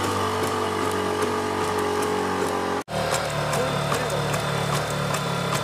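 The LS3 legged robot's onboard engine running with a steady, loud drone. It breaks off for a split second about three seconds in, then carries on with voices faintly under it.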